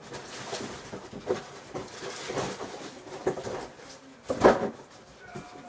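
Rustling and crinkling as a sealed card box and its packaging are handled and opened, with a louder crackle about four and a half seconds in.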